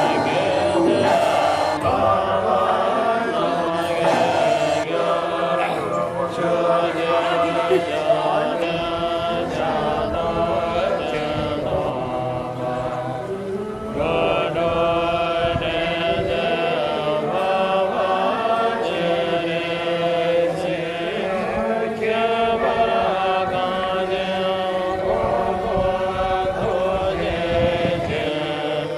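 A melodic chanted mantra used as background music: a voice holding long notes in phrases several seconds long.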